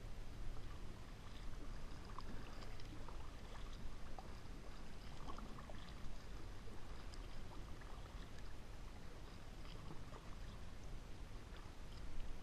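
Double-bladed kayak paddle dipping in calm river water, with water trickling and dripping off the blades in scattered small splashes. A low steady rumble runs underneath.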